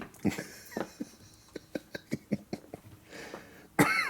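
Scattered light clicks and knocks of handling noise, with a short vocal sound near the end.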